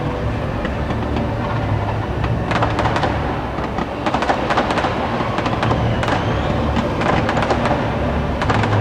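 Fireworks going off in clusters of bangs and crackles, over a steady low rumble of show music.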